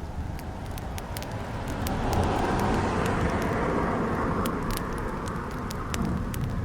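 Wood fire crackling, with frequent sharp pops, over a low steady rumble; a rushing swell of noise builds about two seconds in and eases off by about five seconds.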